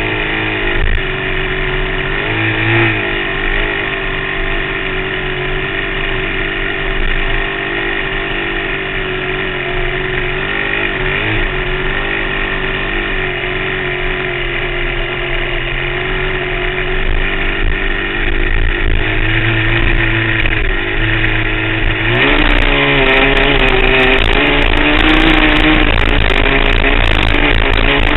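Off-road vehicle engine running on the sand, its pitch rising and falling with the throttle. About twenty-two seconds in it gets louder and harsher as it is pushed harder.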